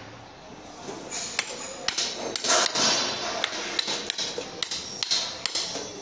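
Hand hammer striking steel, driving a sprocket onto its shaft: a run of sharp, ringing metal blows at about two a second, starting about a second and a half in.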